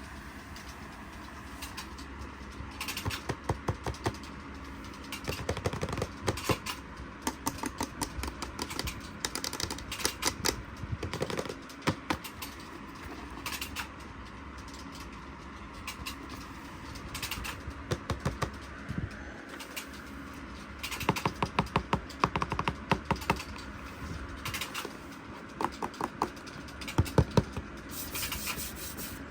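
Hands handling and opening toy packaging: bursts of rapid clicks, taps and rustles of plastic and cardboard, with short pauses between bursts.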